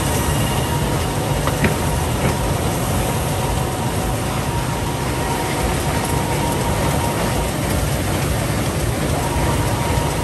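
Meccanotecnica Multiplex gathering and Aster 220SA book-sewing line running: a steady mechanical clatter with a couple of sharp clicks about a second and a half in.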